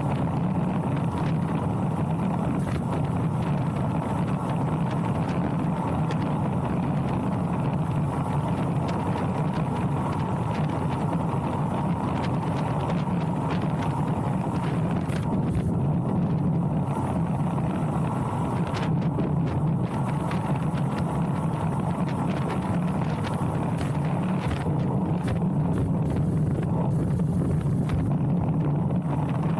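Steady wind rushing over the microphone of a handlebar-mounted action camera on a fast road-bike descent, a low, even roar with no let-up.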